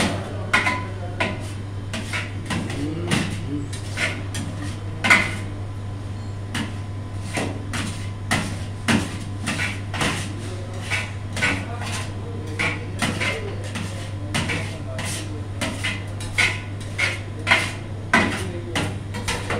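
Metal utensils clacking and scraping against a large round steel tray as chicken shawarma filling is turned and chopped. The clacks come irregularly, about two or three a second, over a steady low hum.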